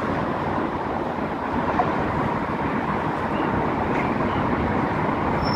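Steady wash of distant traffic noise, even and unbroken.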